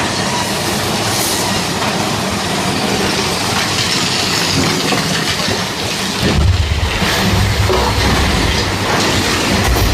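Big Thunder Mountain Railroad mine-train roller coaster running along its track: a steady rattling rush of the cars on the rails. A deep low rumble joins in about six seconds in.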